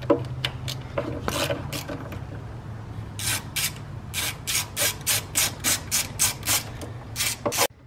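Hand ratchet backing out a timing belt cover bolt on a Subaru 2.5L engine, its pawl rasping on each back-stroke in a quick, even run of about four to five strokes a second from about three seconds in, over a steady low hum.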